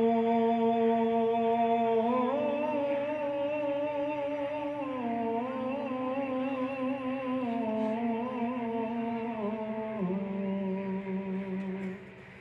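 A man's voice chanting a slow, unaccompanied melodic line. A long held note steps into a phrase of notes that rise and fall with a wavering vibrato, and the voice fades near the end.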